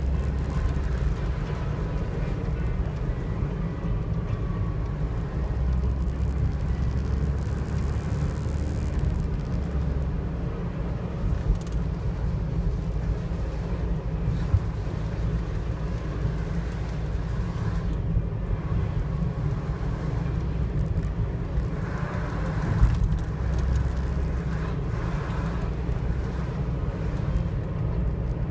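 Car driving along a paved road, heard from inside the cabin: a steady low rumble of engine and tyre noise, with a few brief knocks spread through it.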